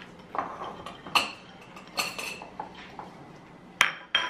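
Small kitchen dishes and utensils clinking together: about five sharp clinks, a few of them ringing briefly, as ingredients are handled over the counter.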